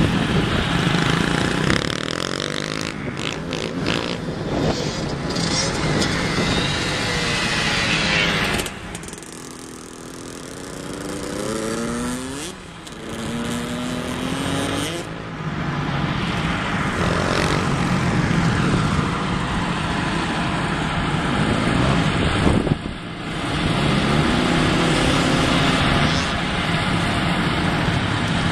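Small dirt bike engine running and revving, its pitch rising and falling as the rider throttles through corners and over jumps. It grows fainter for a few seconds about a third of the way in, when the bike is on the far side of the track, then louder again as it comes close.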